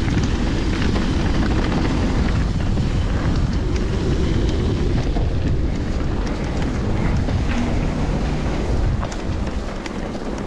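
Mountain bike riding fast down a dirt trail: a steady rumble of tyres on the ground and wind buffeting the microphone, with scattered clicks and rattles from the bike. The rumble eases a little near the end.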